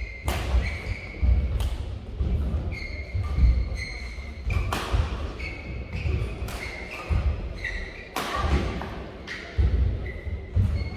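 Badminton rally in a sports hall: sharp racket strikes on the shuttlecock roughly every second, short squeaks of court shoes on the synthetic court mat, and heavy thuds of footwork and lunges, all echoing in the hall.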